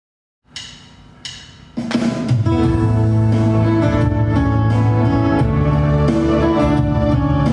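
Instrumental intro of a pop song: two ringing notes, then a full band with bass, guitar and drums comes in about two seconds in and plays on steadily.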